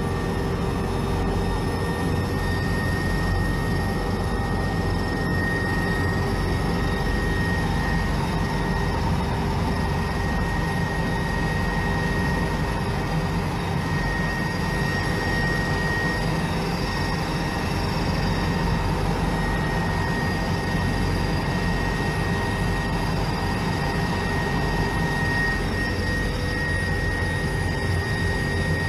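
Steady cabin noise of a Brazilian Air Force helicopter with its engines and rotor running, heard from inside the cabin: a constant high whine and a lower hum over a heavy deep drone.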